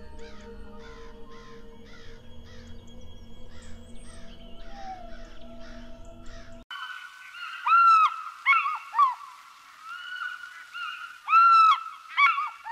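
A rapid run of high, falling chirping calls, about three a second, over a steady droning background. About two-thirds of the way in it cuts to a few loud, clear bird-like calls in twos and threes, which are the loudest sounds.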